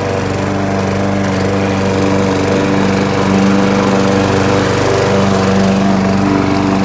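Small gasoline walk-behind lawn mower engine running steadily at working speed as the mower is pushed through tall grass, a constant even hum with no change in speed.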